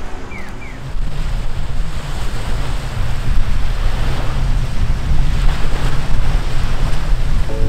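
Small sea waves breaking and washing up a sandy shore, with wind buffeting the microphone as a steady low rumble.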